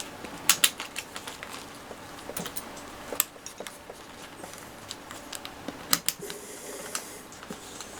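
Irregular sharp clicks and light rustling from handling a flight helmet and its fittings. The clicks are spread unevenly, with the loudest about half a second in, about three seconds in and about six seconds in.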